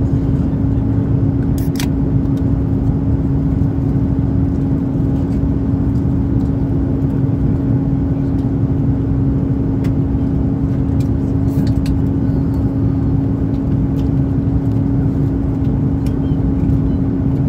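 Airbus A330-300 cabin noise in flight: a steady rush of engine and airflow noise with a constant hum running through it. A couple of faint ticks sound about two seconds in and again near the middle.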